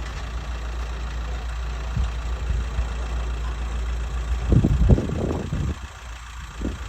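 A steady low engine-like hum, with a louder rumbling stretch about four and a half to five and a half seconds in.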